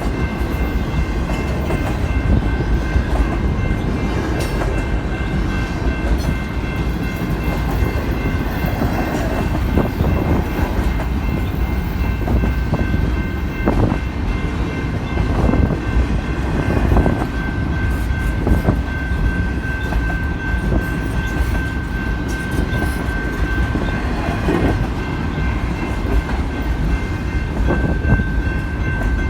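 Cars of an intermodal double-stack freight train rolling past with a steady heavy rumble and scattered wheel clacks, under a steady high-pitched squeal or whine.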